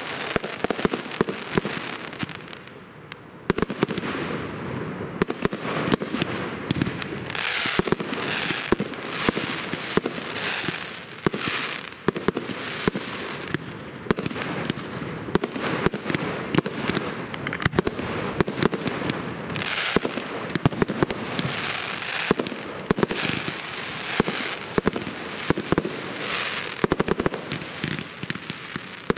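Professional aerial fireworks going off in quick succession, with a steady run of sharp bangs from bursting shells and cakes. From a few seconds in, the bangs are joined again and again by stretches of crackling about a second long.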